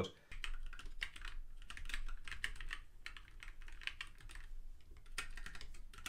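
Fast typing on a ZSA Moonlander split mechanical keyboard fitted with Kailh Box Black linear switches: a quick, steady run of key clacks that starts just after the opening.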